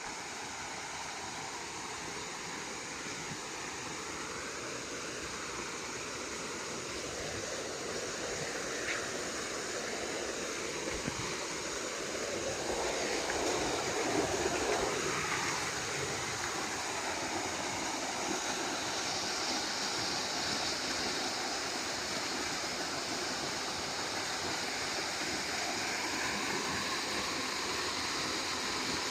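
Waterfall: water cascading down a two-tier fall in a steady rushing noise, which swells a little louder about halfway through.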